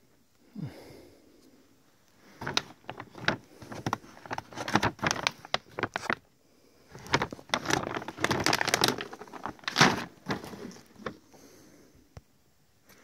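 Large 10 kg sacks of dry cat food being handled open: the crinkling bag walls and the dry kibble rattling inside make dense crackling with sharp clicks. It comes in two spells of a few seconds each, with a short pause between them.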